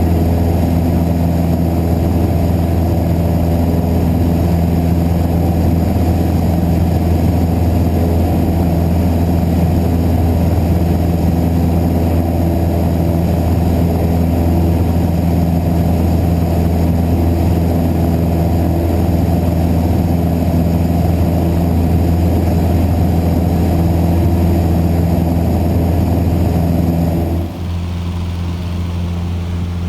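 Cessna 150J's Continental O-200 four-cylinder engine and propeller running steadily at power. About 27 seconds in, the drone drops suddenly to a quieter, lower-powered level.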